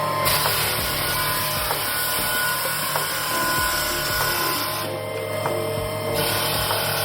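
Electric floor sander running and grinding across red oak hardwood, a steady motor hum under the rasp of sandpaper on wood, with abrupt changes in tone about five and six seconds in.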